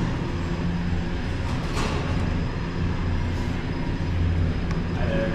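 Steady low hum and rumble of a moving vehicle, heard from inside its cabin, with a brief knock about two seconds in.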